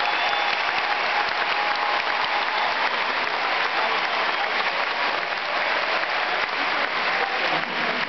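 Large arena crowd applauding steadily, a dense unbroken wash of clapping.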